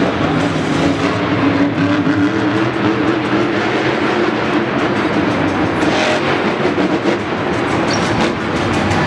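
Monster truck's supercharged V8 engine running, a loud steady drone that wavers slightly in pitch.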